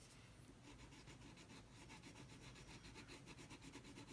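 Faint, quick back-and-forth strokes of a colouring tool on paper as a drawing is coloured in, starting about half a second in and repeating several times a second.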